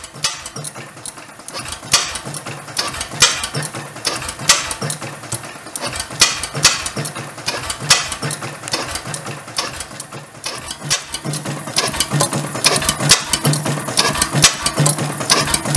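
1911 Crossley JJ hot-tube oil engine running on its first run after a rebuild, with no proper exhaust fitted. Its valve gear clatters steadily, with a sharp crack every second or so over it.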